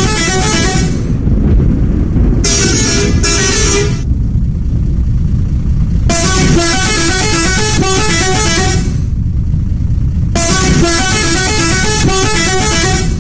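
Bus multi-tone "telolet" horn playing quick stepped tunes of changing notes, in four bursts: the first ends about a second in, then come bursts near 3 s, from about 6 to 9 s, and from about 10 s to near the end. A low engine rumble runs underneath throughout.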